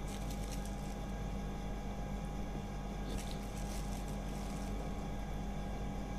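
A steady low machine hum with a few held tones, with faint clicks and scrapes soon after the start and again about three seconds in as spoonfuls of curd are dropped onto raw chicken pieces in a plastic bowl.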